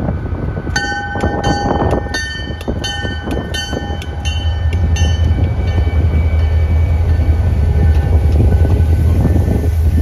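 EMD SD40 diesel locomotive passing close by, its bell ringing about two to three strokes a second for the first five seconds, over the low rumble of its 16-cylinder two-stroke diesel engine, which grows louder as it goes by. Then the passenger cars roll past.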